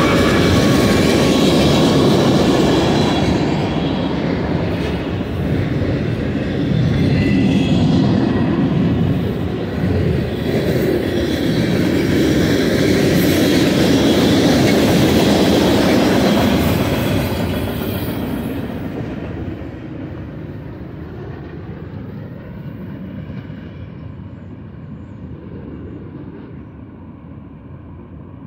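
Freight train passing: BNSF's GE diesel locomotives running as they go by, then a long string of freight cars rolling on the rails with a steady rumble and clatter. The sound drops off a little over halfway through and fades as the train moves away.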